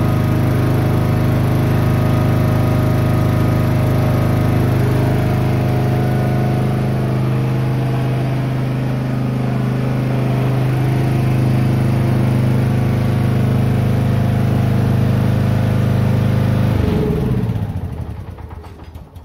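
John Deere F525 lawn tractor's engine running steadily while the tractor is driven off its blocks, then switched off about seventeen seconds in, its pitch falling away as it winds down.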